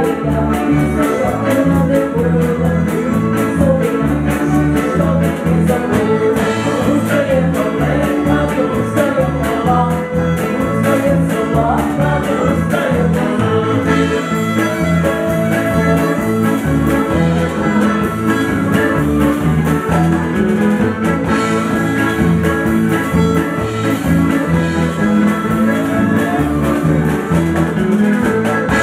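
Ukrainian old-time dance band playing a lively tune live, the fiddle and accordion carrying the melody over guitar and drums with a steady beat.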